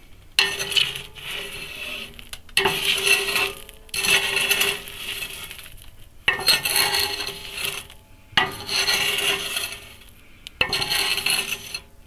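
A steel jack handle, used as a fire poker, scraping and raking wood ash inside the steel firebox of a homemade wood stove. There are about six long scraping strokes, roughly one every two seconds, and the steel body rings with a steady metallic tone on each stroke.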